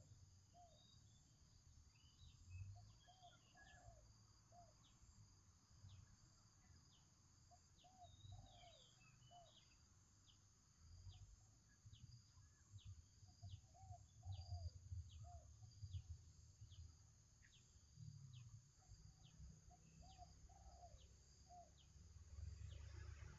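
Near silence: faint background ambience with small clusters of distant chirps and a soft ticking about twice a second.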